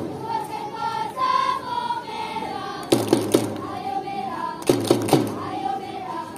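A group of voices singing together, holding notes, with clusters of three or four sharp percussive hits about every two seconds.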